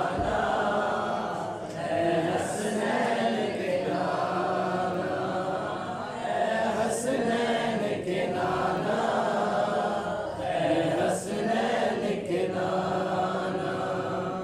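Male voices chanting a devotional naat together into a microphone.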